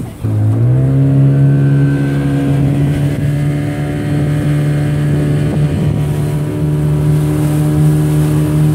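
A small open boat's outboard motor opening up about half a second in, its pitch climbing quickly and then holding steady at running speed, with water and wind rushing past under it.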